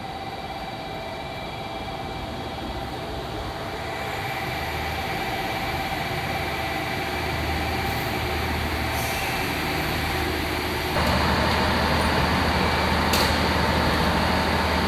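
Diesel railcar engine idling steadily at a station platform, a continuous low rumble with a faint steady whine. The sound grows louder about eleven seconds in.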